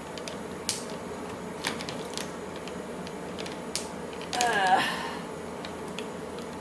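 A few scattered sharp clicks and light creaks from hands working at the plastic and fastenings inside an Elmo Live toy, with a brief voice sound about four and a half seconds in.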